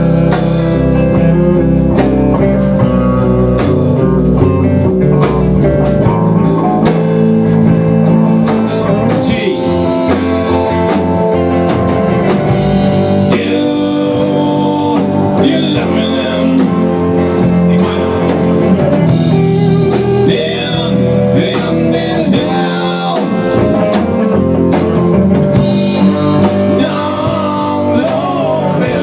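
Live rock band playing blues-rock on electric guitar, bass guitar and drum kit.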